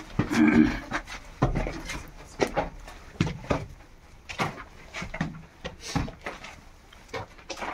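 Irregular footsteps, scuffs and small knocks on rubble-strewn brick stairs and floor. A brief low vocal sound about half a second in is the loudest moment.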